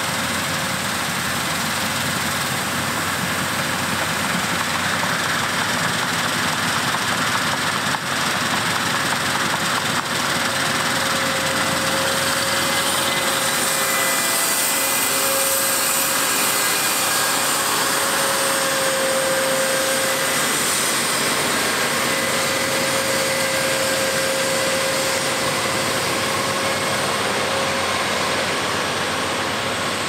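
Claas Lexion tracked combine harvesters running while harvesting wheat: a steady mechanical drone of engine and threshing machinery, with a faint wavering whine.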